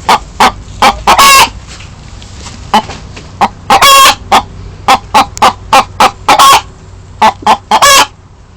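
Chicken clucking: a loud, irregular run of short clucks, with a few longer, drawn-out calls mixed in.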